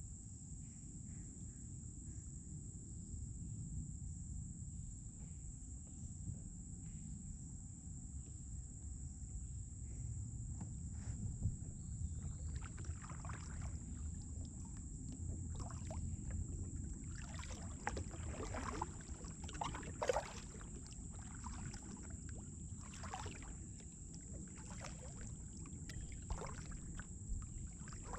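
Kayak paddle blades dipping and splashing in slow river water, with drips off the blades. The strokes are irregular and come thicker from about ten seconds in, over a low steady rumble on the kayak-mounted camera's microphone.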